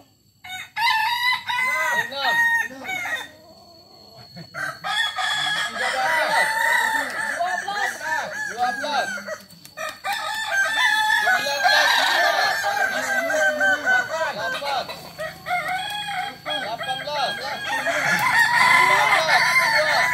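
Several Kukuak Balenggek roosters crowing at once, their long multi-syllable stepped crows overlapping almost without pause, with a short lull about three to five seconds in.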